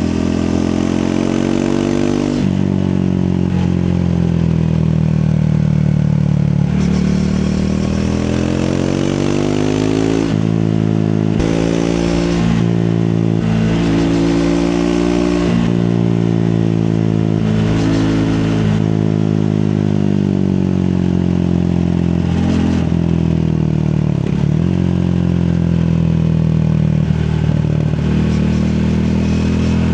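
Triumph Speed 400's single-cylinder engine being ridden. Its revs climb and fall repeatedly, with sudden drops in pitch as gears are changed.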